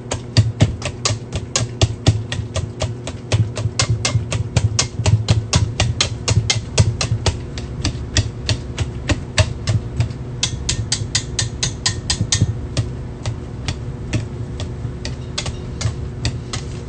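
Wire whisk knocking against the sides of a stainless steel bowl in a quick, steady rhythm of about five clicks a second as avocado is mashed into chunky guacamole. A steady low hum runs underneath.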